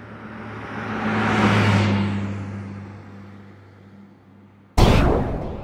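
Electronic whoosh sound effect: a low droning swell that rises and fades away, then a sudden loud hit near the end.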